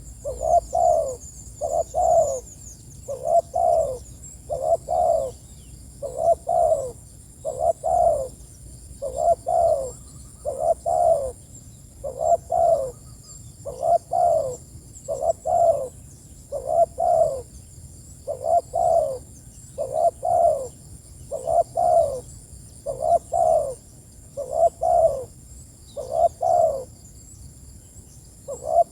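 Spotted dove cooing over and over in short phrases of two close notes, about one phrase every one and a half seconds. Faint high chirping of small birds runs behind it.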